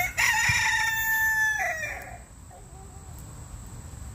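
A rooster crowing once: a short first note, then a long held note that drops away at about two seconds.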